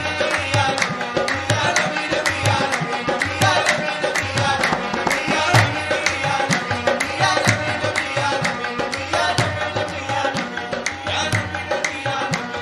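Qawwali music: tabla playing fast, even strokes over a sustained harmonium accompaniment.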